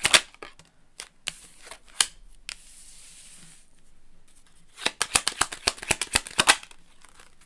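Tarot cards being handled and shuffled on a cloth-covered table: a few scattered taps and slides, then a quick run of card flicks lasting about two seconds, starting near five seconds in.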